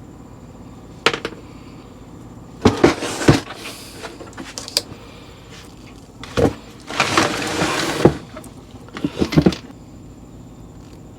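Knocks, clatter and scraping of parts being handled and fitted back in place, in several bursts about a second long, with a sharp knock about a second in. A steady low hum runs underneath.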